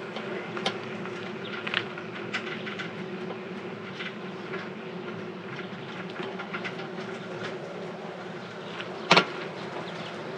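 A rented bicycle rolling along with a steady whirr and irregular rattling and clicking, the noisy ride the rider owns up to. A single sharp clack about nine seconds in is the loudest sound.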